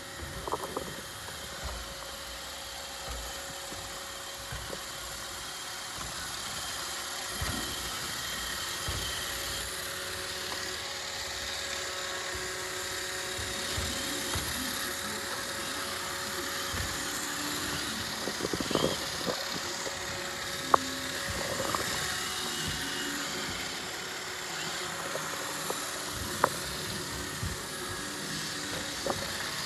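Roomba robot vacuum running: a steady motor whir with a hissing high end, and a few short knocks as it bumps into things.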